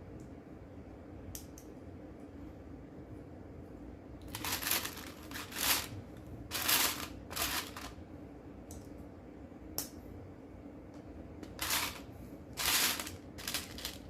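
Loose plastic Lego pieces being rummaged through, in two bouts of short rattling rustles with a few light clicks between.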